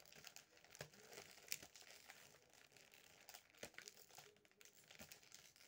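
Faint crinkling of a chocolate Easter egg's printed plastic-and-foil wrapping being worked by hand at its gathered neck, with a few sharp clicks scattered through.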